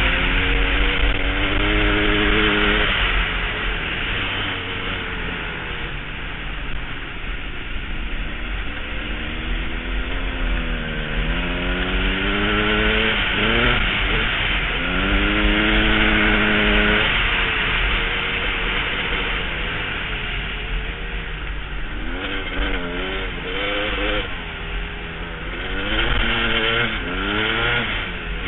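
KTM enduro dirt bike engine, heard from on the bike, revving up and dropping back again and again as the rider accelerates and backs off through the turns. A steady rush of wind noise runs beneath it.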